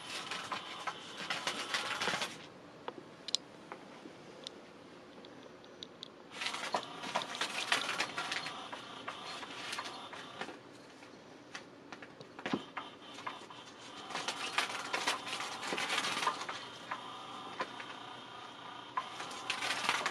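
Battery-powered electric cat-teaser toy (Catch Me If You Can 2): its motor whirs and rattles in runs of a few seconds. It stops between runs and starts again three times.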